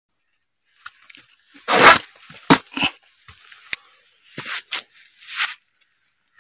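Footsteps and scrambling through dry grass, dead leaves and loose soil: a string of separate crunches and rustles, the loudest about two seconds in.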